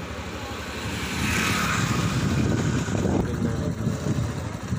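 Motorcycle engine running as the bike is ridden along a road. Louder rushing noise from about one to three seconds in.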